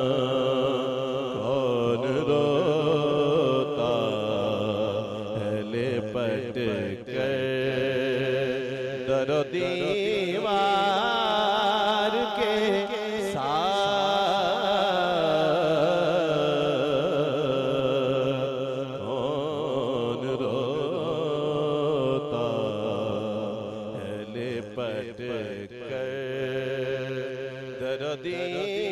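A man's voice singing a naat into an amplified microphone, drawing out long wavering melismatic notes.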